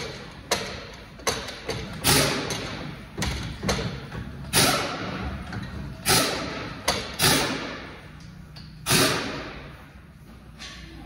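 About a dozen irregular knocks and bangs from tools and parts being worked during a car clutch job, each dying away over a fraction of a second. The loudest come in the middle, and they thin out near the end.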